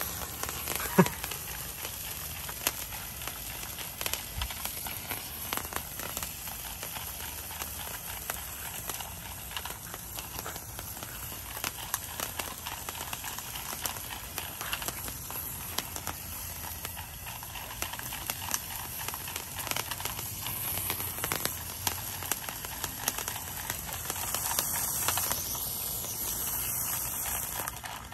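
Seal-shaped Ocean Theater novelty fountain firework spraying sparks: a steady hiss with many small crackles throughout, and one sharp pop about a second in.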